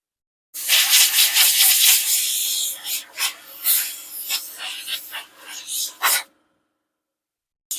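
A loud rushing hiss for about two seconds, then a run of irregular scraping strokes as small engine parts are cleaned. The sound cuts in and out abruptly at either end.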